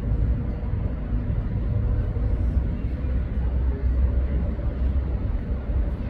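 Steady low rumble of city background noise, with a faint steady hum above it.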